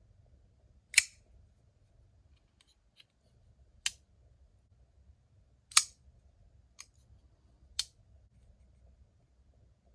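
Titanium frame-lock folding knife being flicked open and shut by its flipper: five sharp metallic clicks a second or two apart as the blade snaps out and locks or drops shut, with a couple of faint ticks between.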